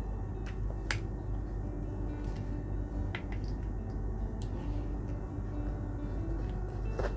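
Scattered light clicks and taps as a T5 UVC germicidal lamp fixture is handled and switched on, the sharpest click about a second in, over a steady low hum.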